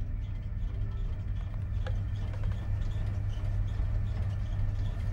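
A steady, loud low hum that swells slightly, with faint high ticks above it.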